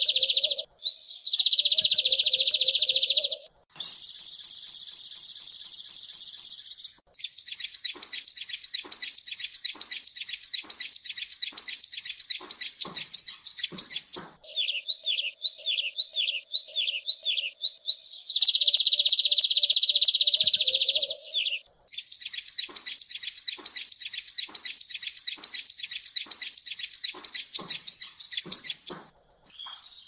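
Kolibri ninja (purple-throated sunbird) singing a long, varied song: high buzzy trills a few seconds long alternate with very fast chattering runs of notes, and in the middle a series of quick down-slurred notes.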